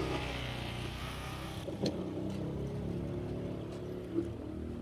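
A motor vehicle's engine running nearby: a steady low hum, with a hiss on top that fades out after about a second and a half.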